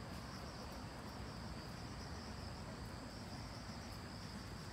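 Insects trilling steadily at a high pitch, over a low outdoor rumble.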